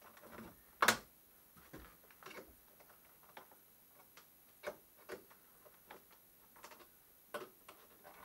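Scattered knocks and clicks of hands working at a plywood shipping crate, trying to pull its sides off. One sharp knock about a second in is the loudest, with a few lighter ones later.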